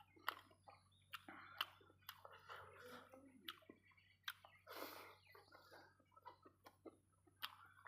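Quiet close-up eating sounds: chewing, with irregular sharp clicks, crackles and mouth smacks.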